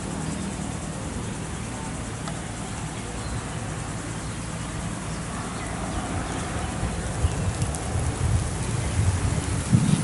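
Outdoor ambience of a steady low rumble, with wind buffeting the microphone in irregular gusts that grow stronger over the second half.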